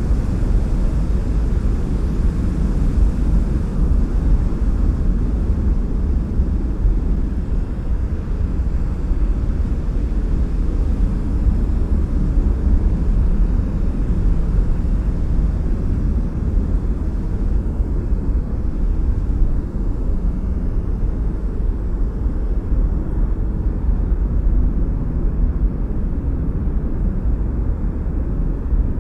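Steady rushing-air noise with a deep, even rumble that stays at one level throughout.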